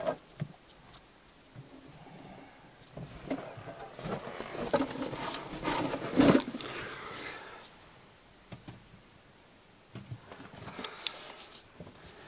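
Someone crawling over loose dumped bricks: irregular scraping and clunking of brick, with one louder knock about six seconds in and a few quieter clicks near the end.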